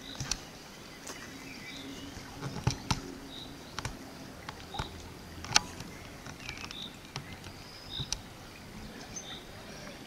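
Outdoor field ambience: a bird's short high chirps repeating every second or so, with scattered sharp clicks and ticks, the loudest a little past halfway.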